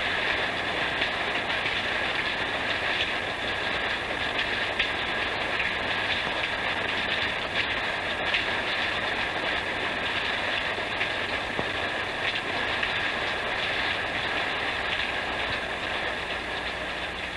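Steady heavy rain falling, an even hiss with no let-up.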